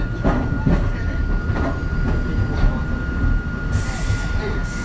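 Hakone Tozan Railway Moha 1 electric railcar standing with its equipment running: a steady low rumble under a constant high-pitched whine, with a few faint knocks in the first half and a short hiss a little before the end.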